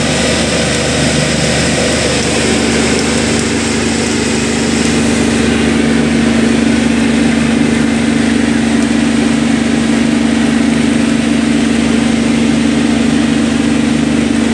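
A fishing boat's engine running steadily: a constant drone, with a low hum that comes in about two seconds in and holds.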